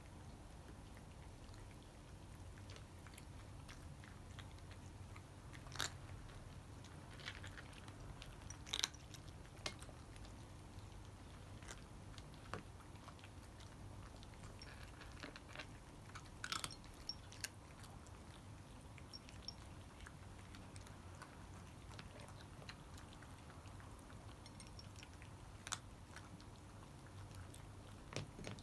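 Cats eating dry cat food: faint chewing and crunching, with scattered short clicks, a few of them louder.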